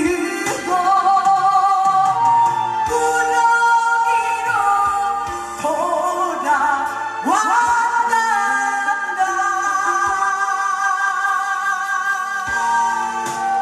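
A woman singing live over an amplified backing track, sliding up into long held notes with vibrato, with drum beats underneath.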